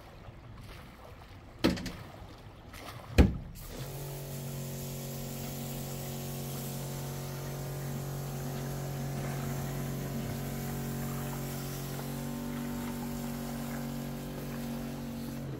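Two sharp knocks, then about four seconds in a boat's outboard motor starts and idles with a steady low hum.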